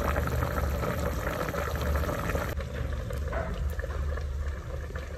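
Chicken stew with bamboo shoots and mushrooms bubbling at a boil in a pot, cutting off suddenly a little over halfway through to quieter sounds, with a steady low hum underneath.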